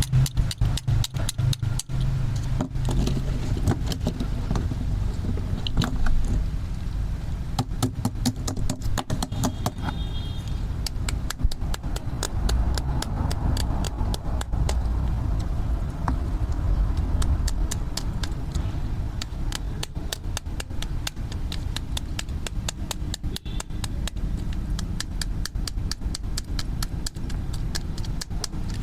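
Plastic toy tools being worked, giving a rapid, uneven run of sharp plastic clicks over a low steady hum.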